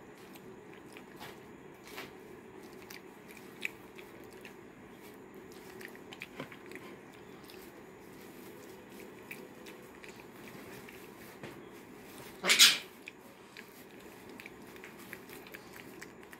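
Pet macaque eating porridge off a spoon: quiet wet chewing and mouth clicks, scattered and irregular. About twelve and a half seconds in there is one brief, louder noisy sound.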